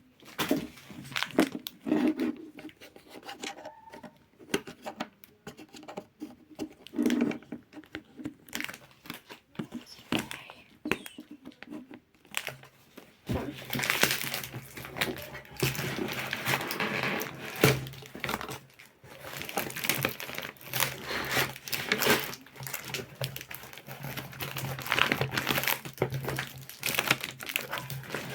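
Packaging crinkling and tearing as a box of squishy toys is unwrapped by hand, in irregular rustling bursts that come thicker from about halfway through.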